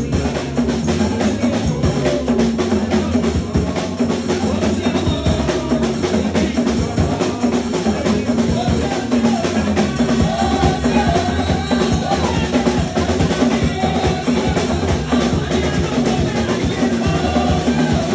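Music led by a drum kit, with kick and snare keeping a steady beat over sustained bass notes.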